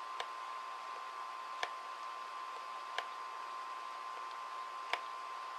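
Steady electronic hiss with a constant whine, broken by four sharp clicks roughly every one and a half seconds, the last one the loudest.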